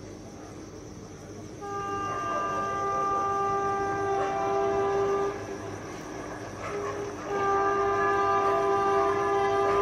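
Indian Railways WAP-4 electric locomotive's horn, several tones sounding together as the train approaches: one long blast about two seconds in, a brief toot, then another long blast starting about seven seconds in.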